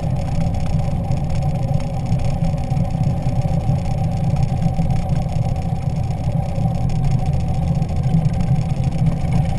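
Cruiser motorcycle engine running steadily at low speed, heard from on the bike, with its sound weighted low and no revving up or down.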